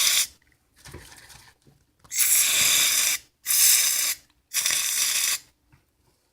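Aerosol shaving cream can spraying in separate hissing bursts: a short faint one about a second in, then three strong bursts of about a second each, ending near the end.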